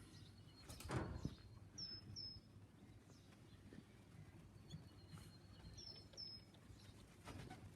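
Quiet background with a small bird chirping: two pairs of short, high notes, about two seconds in and again about six seconds in. A brief noise about a second in is the loudest sound.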